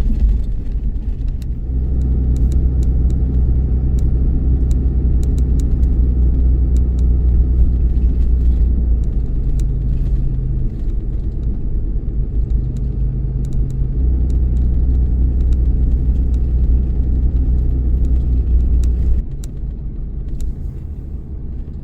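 Truck engine running with a steady low drone, its level and pitch shifting a few times, heard from inside the cab.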